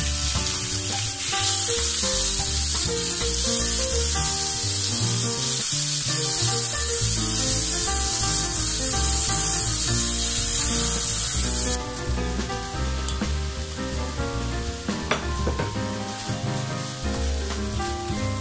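Thin-sliced pork sizzling loudly in a hot frying pan as it is stirred. About twelve seconds in, the sizzle drops suddenly to a quieter frying of pork and potato chunks. Light background music plays underneath.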